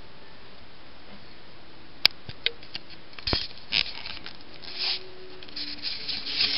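Steady hiss at first. About two seconds in come a few sharp clicks, followed by bursts of rubbing and scraping handling noise as the camera is picked up and moved.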